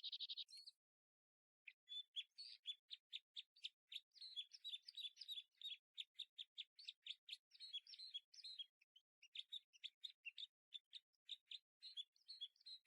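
Faint birdsong: quick runs of short, high chirps and twitters, starting about two seconds in.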